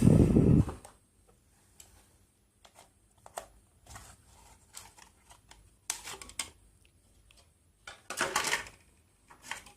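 Hands handling a product box and its contents: a thud as something is set down at the start, then scattered light clicks and taps, with bursts of rustling around six and eight seconds in.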